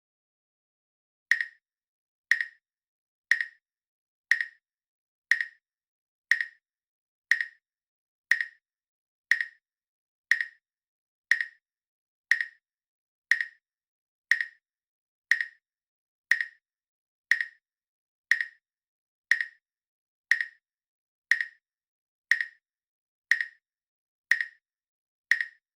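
Countdown timer's tick sound effect: a short, bright click once a second, evenly spaced, about twenty-five in a row.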